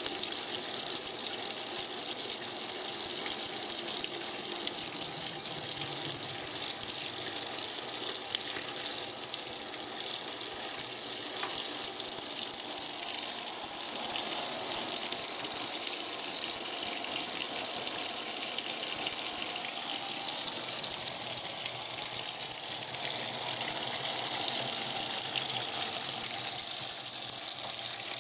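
Electrolux Top 8 top-loading washing machine with water pouring steadily into its tub, filling for the rinse.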